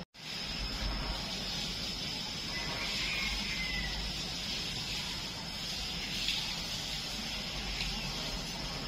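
Steady outdoor background noise: an even hiss, with a thin, continuous high tone above it and a low rumble beneath.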